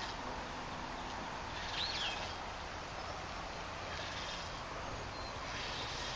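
Steady outdoor background hiss with faint high insect tones, and one short rising-and-falling bird chirp about two seconds in.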